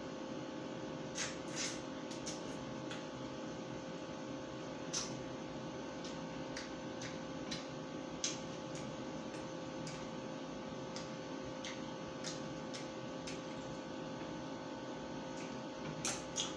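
A person eating roast chicken by hand: scattered, irregular mouth clicks and smacks from chewing, with a couple of finger-sucking smacks near the end, over a steady hum.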